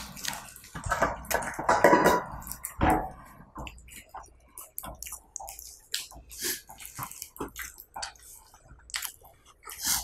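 Close-up eating sounds: irregular wet clicks and smacks of chewing on chocolate-filled biscuits, with some louder crunching and rustling in the first few seconds.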